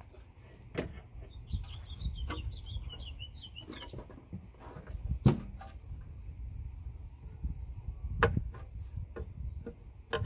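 Hard plastic battery case knocking as it is handled and turned over on the table: three knocks, the loudest about halfway through. A small bird twitters briefly in the first half, over a low rumble.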